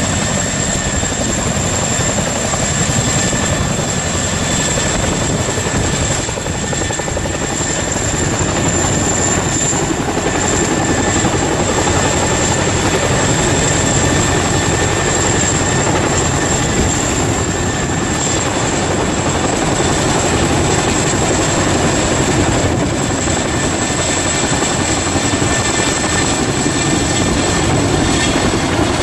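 Boeing CH-47 Chinook tandem-rotor helicopter running, its rotors beating steadily under a constant high whine.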